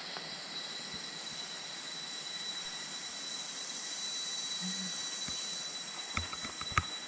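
Steady high-pitched hiss of a forest insect chorus, with one constant high tone running through it. A few short knocks near the end.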